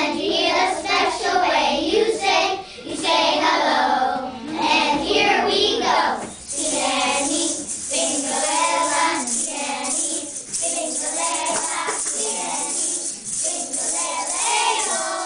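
Children's choir singing. About six seconds in, shaken maracas join in with a steady rattle over the singing.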